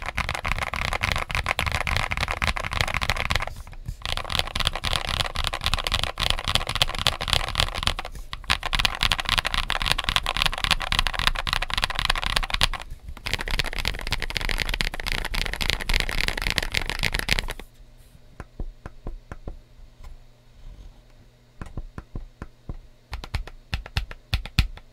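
Mechanical keyboard typing: an aluminum gasket-mount Mxrskey CK650 65% keyboard with Leobog Ice Soul tactile switches and Feker CSA PBT keycaps, typed on fast and continuously with two brief pauses. Over the last third it changes to scattered single keystrokes.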